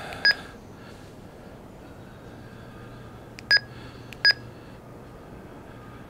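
TidRadio TD-H8 handheld radio's keypad beeping as its buttons are pressed to work through the menu: three short high beeps, one just after the start and two more about three seconds later, under a second apart.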